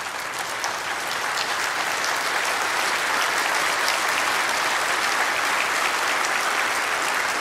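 Large audience applauding steadily, the clapping building up over the first second or two.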